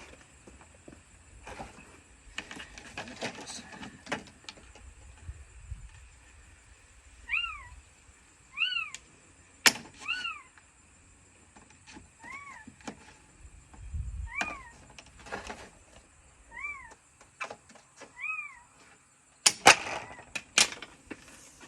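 A cat meowing about seven times, short rising-and-falling meows a second or two apart through the middle. Between them come sharp snaps of tin snips cutting vinyl siding, the loudest about ten seconds in and a quick cluster near the end.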